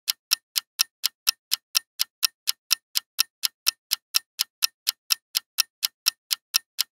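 Countdown-timer sound effect: a clock ticking quickly and evenly, about four ticks a second.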